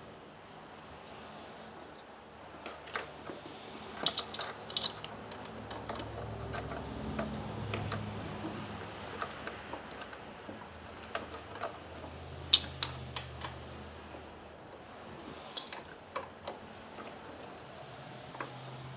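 Irregular light metal clicks and taps of hand tools and bolts being worked into a valve housing on an engine, with one sharper click about two-thirds of the way through. A faint low hum comes and goes underneath.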